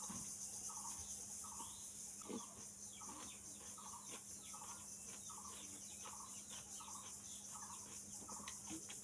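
Crisp crunching as a mouthful of raw onion is bitten and chewed, over a steady high hiss and a background animal, most likely a bird, giving short warbling calls in an even rhythm of about three every two seconds.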